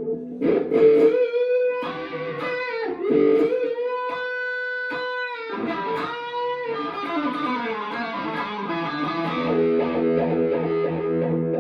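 Electric guitar played through a Dunlop Cry Baby wah pedal set to its GCB-95 voicing, into a Mesa Nomad 100 amp. It plays held, bent lead notes, with a falling slide about seven seconds in, then a sustained chord ringing near the end.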